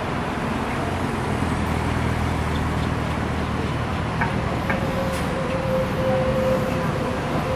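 Steady low engine drone of buses and traffic at a bus interchange, under an even wash of noise; a steady whine joins about halfway through.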